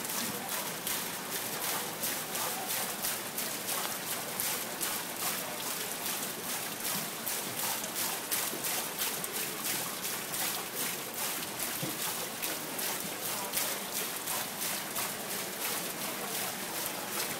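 Running water splashing and trickling steadily into a rocky fish display pool.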